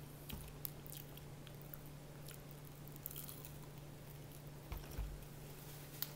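A person biting and chewing breaded fried chicken close to the microphone, with scattered crisp crackles of the crust, over a steady low hum. A couple of dull knocks come near the end.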